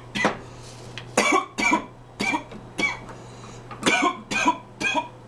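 A man coughing hard and repeatedly, about eight coughs in irregular clusters, after inhaling a dab of cannabis concentrate (butter) from a glass rig.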